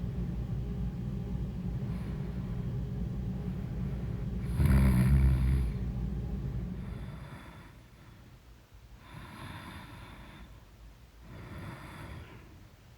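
A person snoring: a steady low snore that ends in one loud snort about five seconds in, followed by three softer breaths a couple of seconds apart.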